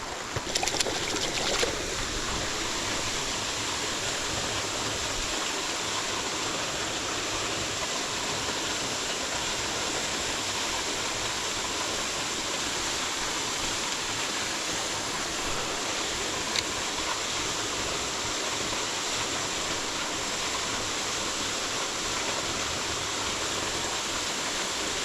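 Mountain stream rushing steadily, a constant wash of falling water, with a few knocks in the first two seconds.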